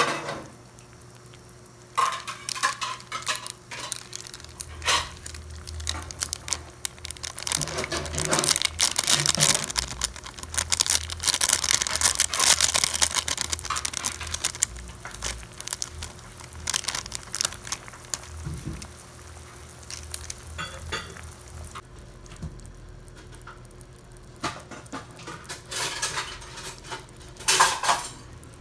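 Vegetables boiling in broth in a wok, with a utensil clinking and scraping against the pan at intervals as the mixture is stirred and seasoned. The clatter is busiest from about eight to fourteen seconds in, then eases off, with another burst of clinks near the end.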